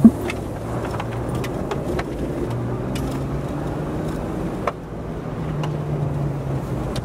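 Car running, with steady road and engine noise and a faint low hum, plus a sharp knock right at the start.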